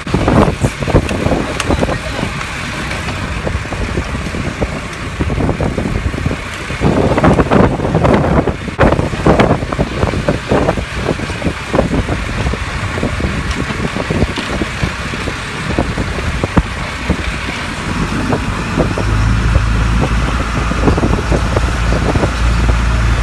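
Wind buffeting the microphone and water rushing along the hull of a fishing boat at sea, over the boat's engine; a steady low engine hum becomes prominent in the last few seconds.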